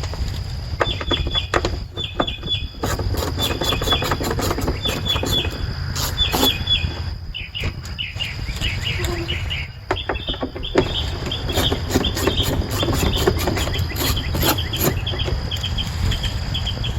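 Socket ratchet clicking in quick runs as the screws holding the plastic HVAC case halves together are backed out. Birds chirp repeatedly in the background.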